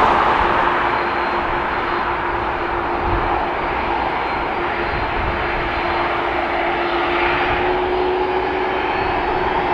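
Jet engines of an Airbus A330-300, Rolls-Royce Trent 700 turbofans, running as the airliner rolls along the runway: a steady rushing noise with one held tone that rises slightly about seven seconds in.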